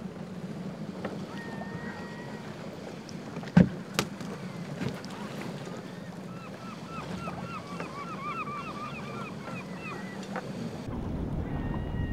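A small fishing boat's engine running steadily, with two sharp knocks about three and a half seconds in and a run of short chirping squeaks in the second half. Near the end it gives way to wind and waves.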